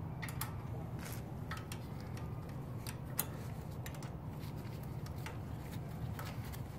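Scattered light clicks and taps of tools and metal parts as the front derailleur's shift cable is being disconnected, the sharpest about three seconds in, over a steady low hum.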